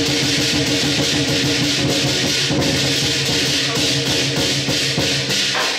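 Lion dance percussion: a big drum beaten in a fast, continuous rhythm with clashing cymbals ringing over it.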